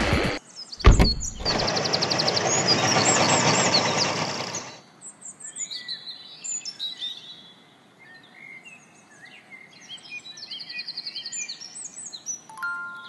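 Birds chirping and twittering throughout, at first over a steady rushing noise that stops about five seconds in, then on their own. A single thump comes about a second in.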